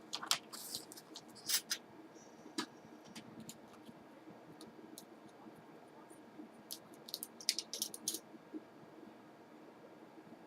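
Light clicks and taps as a mounting bracket is handled and fitted onto a laptop screen panel, in two clusters: one in the first couple of seconds and another around seven to eight seconds in.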